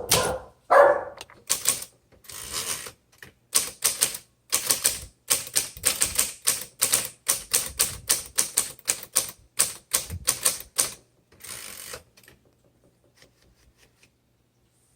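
1962 Olympia SM7 manual typewriter being typed on: a run of sharp, uneven keystrokes, the typebars striking the platen several times a second. The typing stops about eleven seconds in, followed by one longer rasping mechanical sound.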